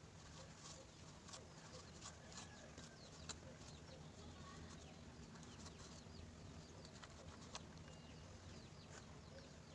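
Near silence: faint scattered ticks of light handling and faint bird chirps in the background.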